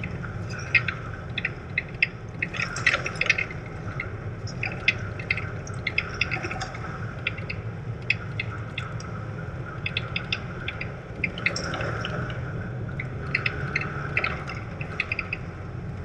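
Car driving on a wet, narrow tarmac lane, heard from inside the cabin: a steady low drone of engine and tyres with irregular sharp ticks of water spray thrown up from the wet road.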